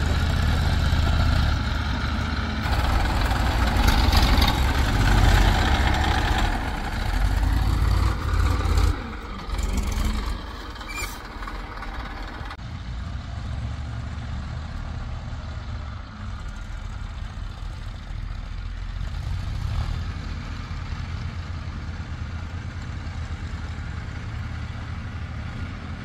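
Diesel engine of earth-moving or farm machinery running. It is loud, with added noise over the rumble for about the first nine seconds, then drops to a quieter, steady idle.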